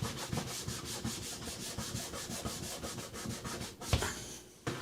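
Rapid back-and-forth hand rubbing against the light's housing, about five even strokes a second, stopping near the end, followed by two short knocks.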